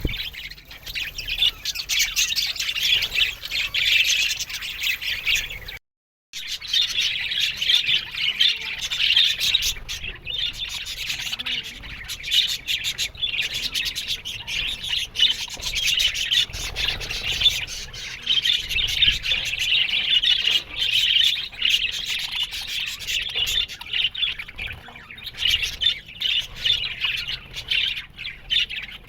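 A flock of budgerigars chattering, with a constant mix of warbling chirps and short squawks from many birds at once. The sound cuts out briefly about six seconds in.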